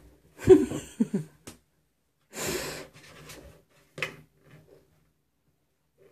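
A person's breathy vocal sounds: a quick run of short pitched bursts, then a loud exhale about two and a half seconds in, with a sharp click near four seconds.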